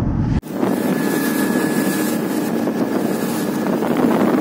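Motorboat under way at speed: a steady engine drone mixed with rushing water and wind on the microphone. The sound cuts out for an instant about half a second in and resumes with a higher, steadier engine tone.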